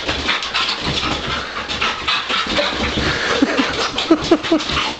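Dog panting in a quick, steady run of breaths, with a few short whines about three and a half to four and a half seconds in.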